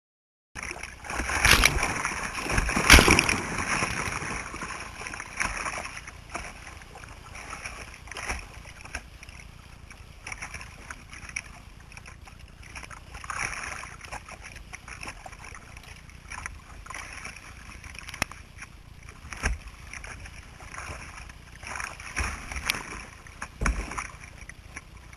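Paddle strokes splashing and river water rushing past a small paddled boat, with loud splashes about a second and a half and three seconds in, then quieter sloshing with occasional splashes.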